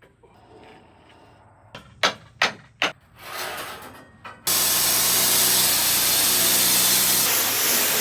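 Three sharp knocks, then a loud, steady hissing rush from a power tool working on the log, which starts suddenly about halfway through.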